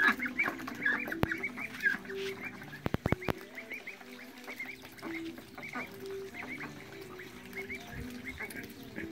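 A small flock of domestic ducks calling, with quick high-pitched chirps going on throughout and short low calls among them. A quick run of sharp clicks comes about three seconds in.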